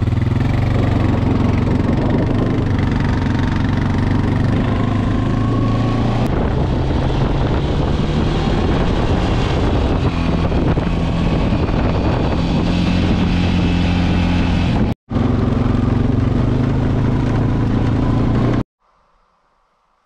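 Honda ATV (four-wheeler) engine running steadily as it is ridden across snow-covered lake ice. It breaks off for an instant late on, then stops suddenly near the end.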